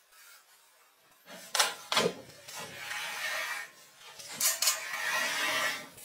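An old enamelled wood-burning stove being set down and shifted on a blanket over a wooden floor: two sharp knocks, a stretch of scraping and rubbing, two more knocks past the middle, then more scraping.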